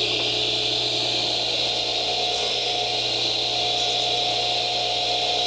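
Radial arm saw running steadily at full speed, its motor humming and the blade spinning, ready for a shallow test dado cut in scrap wood.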